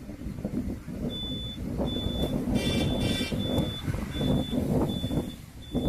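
A vehicle's reversing alarm beeps steadily, a high thin beep about every three-quarters of a second starting about a second in, over the low rumble of a bus engine. Near the middle a short two-part buzzy tone sounds.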